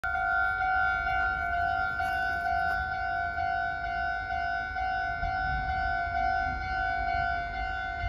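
Japanese level-crossing alarm ringing: an electronic warning bell repeating one steady pitched ding over and over, the signal that a train is approaching and the barriers are down.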